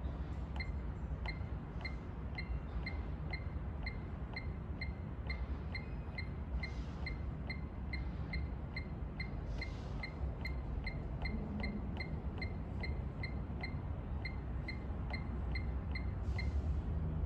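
Agilent 3458A multimeter's front-panel beeper giving short, high beeps at an even pace of about three a second while an arrow key is held to scroll its error display, over a steady low hum. The meter is reporting error 202, a hardware failure ("SLAVE ST: CONVERGENCE").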